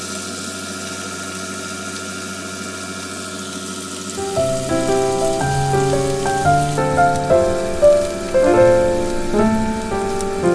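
T-bone steaks sizzling in a frying pan, a steady hiss. A light melodic music track with clear stepping notes comes in about four seconds in and plays over it.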